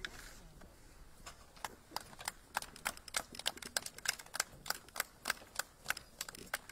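A run of sharp, regular clicks, about three a second, starting about a second in and stopping near the end.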